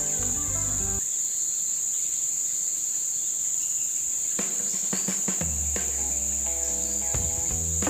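Insects trilling steadily at a high pitch, with background music that drops out about a second in and comes back about halfway through after a few clicks.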